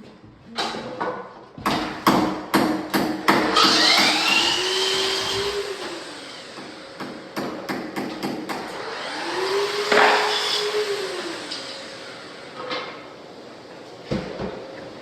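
Quick runs of hammer blows, typical of floorboards being knocked tight while laid on a concrete slab, with a small motor twice spinning up, holding and winding down between them.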